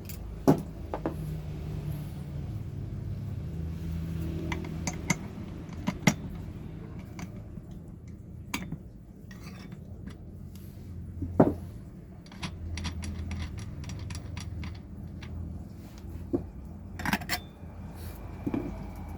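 Hard parts clicking and clinking now and then as they are handled, with sharper knocks about half a second in, near the middle and near the end: an old CD and its fittings being mounted on an angle grinder.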